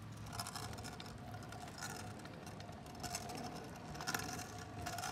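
Kick scooter rolling on an asphalt road: a faint steady wheel hum over a low rumble, with a short scuff or knock about once a second.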